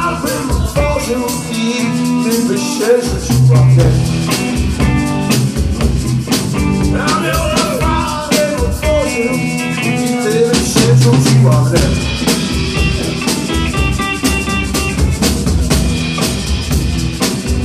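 Live blues played on electric guitar and drum kit, loud and steady, with regular drum and cymbal hits under bending guitar lines.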